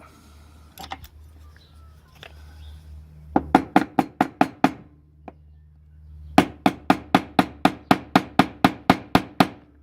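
Small hammer tapping in quick, even strokes, about four a second: a short run of about seven taps around three and a half seconds in, then a longer run from about six and a half seconds on.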